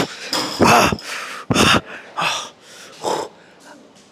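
A man breathing hard in about five forceful, partly grunted puffs, growing fainter toward the end. He is straining to hold out through the last seconds of a long weighted core hold.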